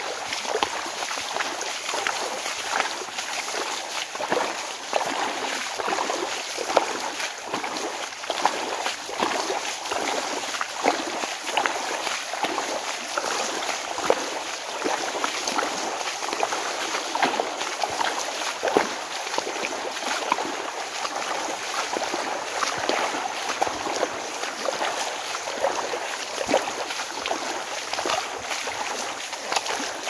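Muddy rainwater runoff flowing fast down a flooded path: a steady rush of water with many small splashes and gurgles.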